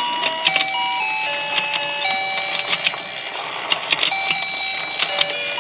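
Battery-powered toy fishing-pond game playing its simple electronic tune, one plain note at a time, over many short plastic clicks and taps.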